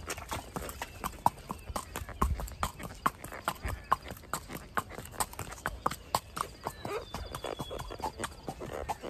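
Horse's hooves clip-clopping at a walk: a steady run of sharp hoof strikes, about three to four a second.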